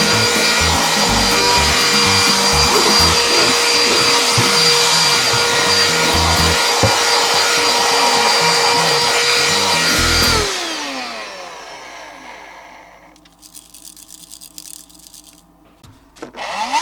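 Small cordless handheld vacuum cleaner running with a steady high whine. About ten seconds in it is switched off and the whine falls away as the motor spins down. Near the end it is switched on again and the whine rises back up.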